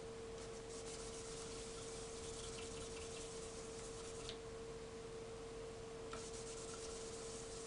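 Faint wet sanding: a 3D-printed plastic piece rubbed lightly back and forth on wet 1200-grit sandpaper, a soft rasping that pauses briefly a little past the middle. A steady hum runs underneath.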